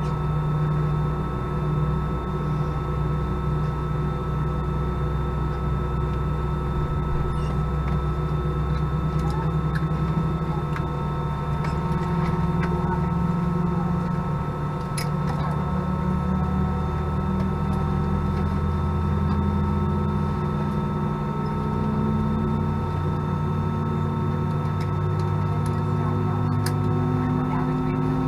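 Airbus A319 cabin noise on the ground: a steady hum of the engines and air system, with a low tone that slowly rises in pitch over the second half and a few faint clicks.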